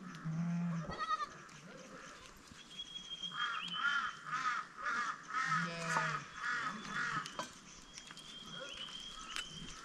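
A goat bleating: a short call about a second in, then a long, quavering bleat that pulses about twice a second from about three to seven seconds in.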